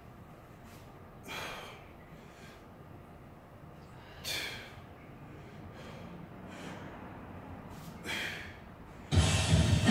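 Three hard breaths, about three to four seconds apart, from someone straining through kettlebell windmill reps. Loud background music with a beat starts abruptly near the end.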